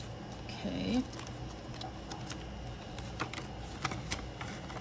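Paper money and cash envelopes being handled: soft paper rustling with a few light clicks, and a brief wordless vocal sound just before one second in.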